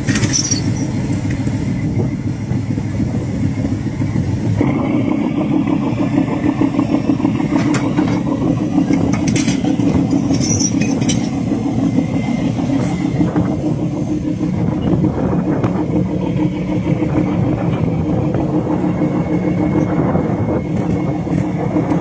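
Fishing boat's engine running steadily under way, a loud low drone, with a few brief clicks and knocks over it.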